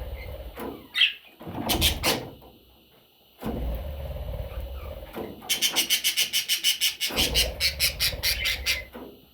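Newly hatched budgerigar chicks cheeping: a few calls about a second in, then a fast run of short, shrill chirps at about six a second from the middle on, with a low rumble underneath.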